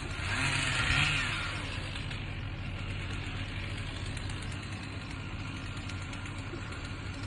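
Vehicle engine running under load with a steady hiss. It swells briefly about a second in, then holds steady.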